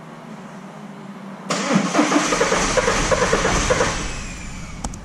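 A VW 1.9 TDI diesel engine being cranked by its starter, beginning about one and a half seconds in with a rhythmic pulse of about four to five beats a second, then fading out, with a few sharp clicks near the end. The engine cranks too long because its cam timing is out by two and a half teeth.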